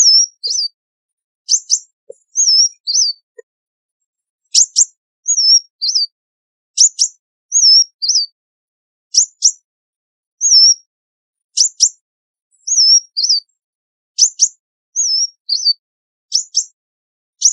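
Sunbird singing: short high phrases, each two sharp chips followed by a few wavering whistled notes, repeated about every two seconds.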